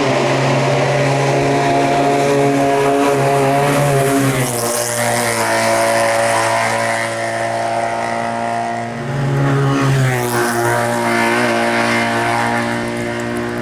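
Race car engine running hard at high revs, its pitch shifting a little over four seconds in and again about nine seconds in.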